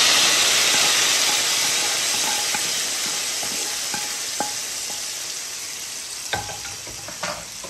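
Hot-oil tempering (baghar) of fried garlic, dried red chillies and mustard seeds sizzling loudly as it hits a pot of cooked haleem. The sizzle fades steadily as the oil cools. A couple of light knocks come near the end.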